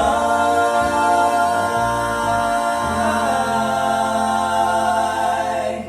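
Gospel vocal trio holding the final chord of a song, the voices sustained in harmony and cutting off together near the end.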